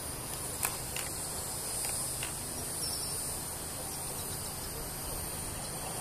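Outdoor ambience by the nest: a steady high-pitched insect drone, with two short high chirps about three and four seconds in and a faint click just under a second in.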